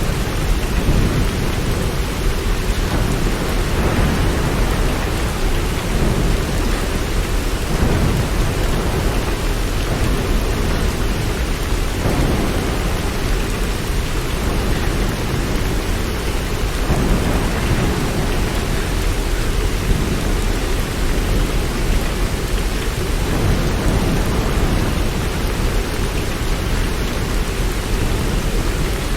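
Steady heavy rain, a continuous even hiss with a deep low rumble underneath and no separate claps or drops standing out.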